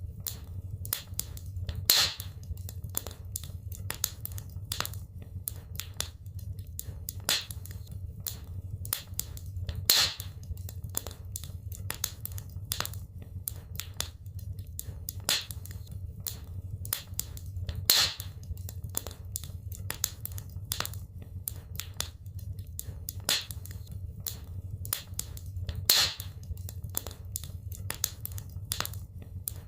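Wood fire crackling in a fireplace: a dense run of small crackles and snaps, with a sharper pop about every eight seconds, over a steady low rumble.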